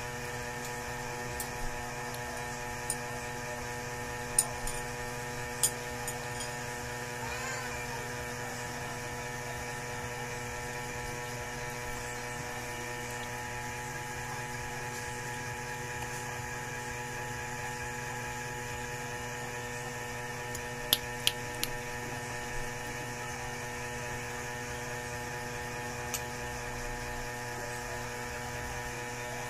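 Steady electrical hum made of several even, unchanging tones, with a few faint sharp clicks scattered through it.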